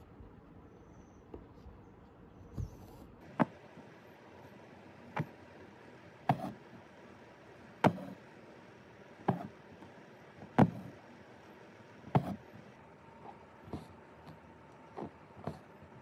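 Embroidery needle punching through cotton-linen fabric stretched taut in a hoop: a sharp tap about every second and a half, starting about three seconds in. Some taps are followed by a short drag of the cotton floss pulled through.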